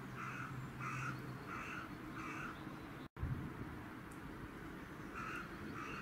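Crow cawing: four harsh caws about two-thirds of a second apart, then after a short break two more near the end.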